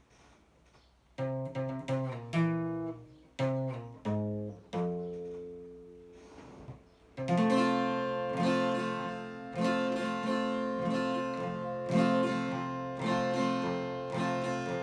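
Acoustic guitar played solo. After a second of near quiet come single low notes picked one at a time, then from about seven seconds in a steady strummed rhythm of chords.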